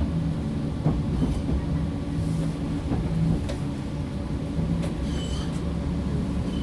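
PESA Fokstrot tram heard from inside while moving: a steady running rumble with a low motor hum, a few clicks from the wheels on the rails, and a brief high squeal about five seconds in.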